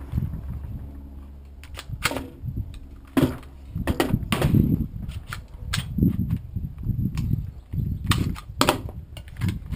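AR-15 rifle firing several sharp single shots at irregular intervals, a few seconds apart at times.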